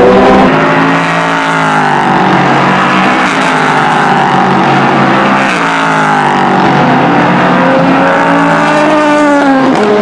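Endurance racing cars' engines at high revs, more than one car heard at once. Their pitch repeatedly falls and then climbs again as the cars pass.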